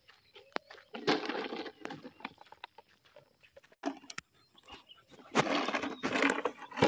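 Black Labrador puppy chewing and mouthing an empty plastic bottle, the plastic crackling and crunching in two bursts, about a second in and again from about five seconds, with scattered clicks in between.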